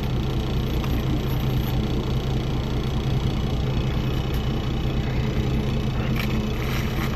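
Boat engine idling steadily: an even, low hum with no change in speed.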